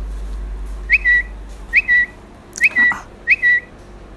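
A short high whistled call, a quick upward flick settling into a brief steady note, repeated four times at a steady pace of a little more than one a second. A low hum fades out within the first second and a half, and there is a brief rustle about two-thirds of the way through.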